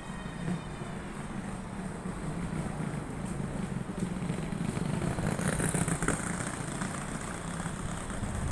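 EP2K electric passenger locomotive approaching slowly: a steady low hum that grows gradually louder as it nears, with a brief hiss about halfway through.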